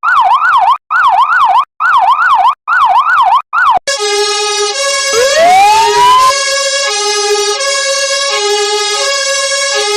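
An electronic siren sweeping quickly up and down in short bursts with brief gaps, giving way about four seconds in to a German-style two-tone emergency horn alternating between two steady notes. Around five seconds in, a second siren winds up, rising in pitch, over the two-tone.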